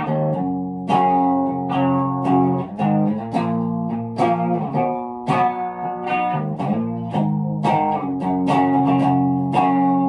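Electric guitar playing a melodic instrumental passage of picked single notes and chords, each note ringing out for up to about a second before the next.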